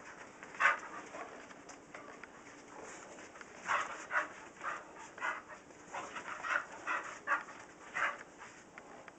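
Staffordshire terrier breathing hard in quick noisy huffs while spinning after her tail: one sharp huff about a second in, then a steady run of huffs, about two a second, from a few seconds in.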